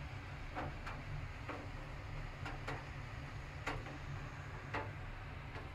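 Raindrops striking the window glass and frame, heard from indoors as faint, irregularly spaced ticks, about eight of them, over a low steady hum.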